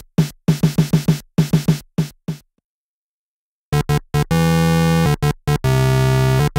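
Electronic drum-machine beat of short, quick hits that stops about two and a half seconds in. After a second of silence, a loud, low, buzzing synthesizer tone starts with a few short stutters and then holds steady.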